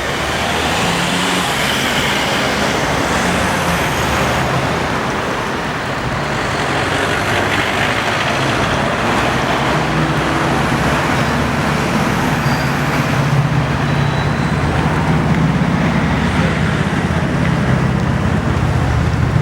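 Road traffic passing close by at a street crossing: a steady rush of cars and engines, with a heavier engine hum growing louder in the second half.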